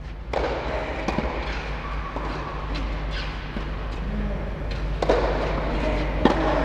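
Tennis rackets striking the ball during a rally on an indoor clay court, each hit a sharp pop that echoes in the covered hall. The strongest hits come about a third of a second in and about five seconds in. A steady low hum runs underneath.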